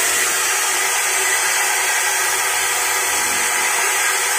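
Maktec MT580 circular saw's brushed motor running steadily at full speed with no load, a constant whine and hiss. This is a test run after the armature was refitted and new CB-303 carbon brushes were fitted, checking whether the brushes still throw heavy sparks; here the sparking is back to normal.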